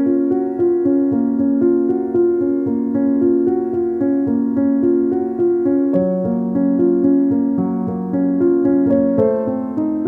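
Background piano music, a slow run of sustained notes.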